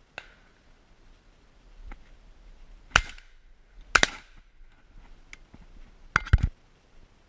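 Shotgun shots at birds passing overhead: two loud reports about a second apart, about three seconds in, then two more close together near the end.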